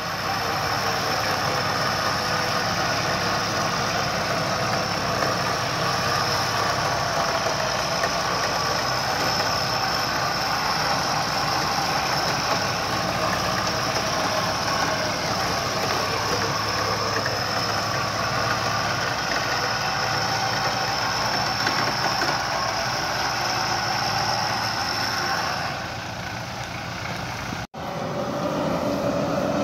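Pickup truck's engine running at a steady speed, with a steady high whine over it. About 26 seconds in it drops away, and soon after it breaks off abruptly.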